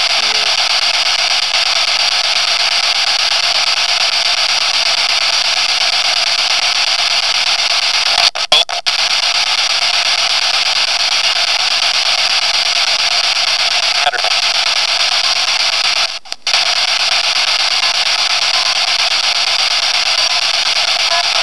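Steady, loud hiss of static noise, strongest in the middle and upper range, that briefly cuts out about eight seconds in and again about sixteen seconds in.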